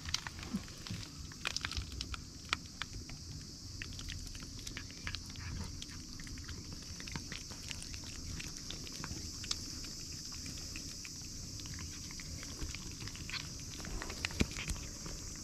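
Cats licking paste treat from a hand-held squeeze tube: a run of quick, irregular wet licking and smacking clicks.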